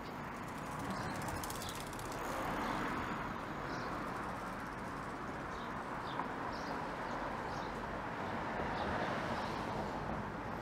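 Steady traffic noise along a busy city street, with a few short, faint high chirps, likely birds, scattered through it.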